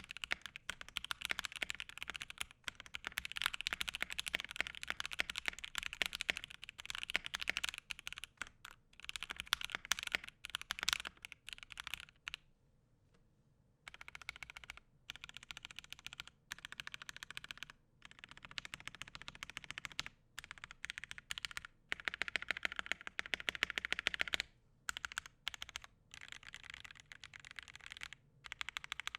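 Fast typing on a Gentleman65 mechanical keyboard with Alpaca linear switches in an acrylic plate: rapid, muted keystroke clacks in continuous runs, with a pause of about a second and a half near the middle and shorter breaks later.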